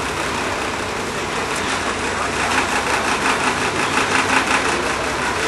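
Steady drone of a car ferry under way, heard in its passenger lounge, with indistinct chatter of passengers mixed in.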